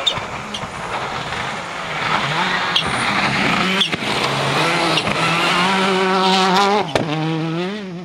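Skoda Octavia WRC rally car driven hard on gravel: its engine note climbs and gets louder through the second half, wavering with quick dips and rises between gear changes. Several sharp cracks sound along the way.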